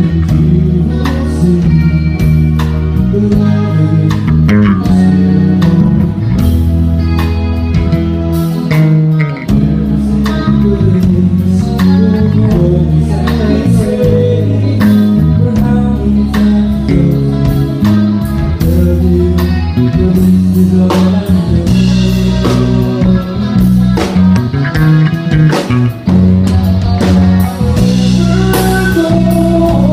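A live band playing a song: a drum kit keeping a steady beat under a heavy bass line and guitar, with some singing.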